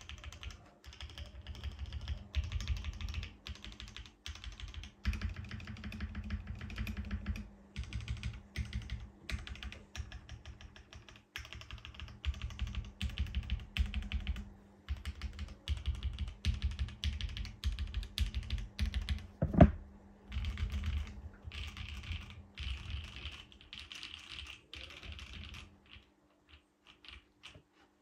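Typing on a plateless, gasket-mounted 7V mechanical keyboard with lubed Gateron Cream Soda switches and GMK keycaps: quick runs of soft keystrokes with short pauses between them. One louder clack comes a little past the middle, and the typing thins out near the end.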